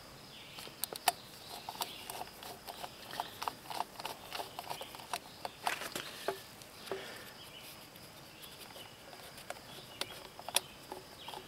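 Screwdriver working screws into a string trimmer's plastic engine housing and carburetor mount: irregular small clicks and light taps of metal on plastic, with a sharper click near the end.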